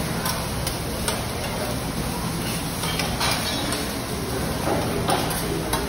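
Metal spatulas scraping and clinking on a hot flat-top teppanyaki griddle as fried rice and egg are stirred and chopped, with a steady sizzle under scattered sharp clicks.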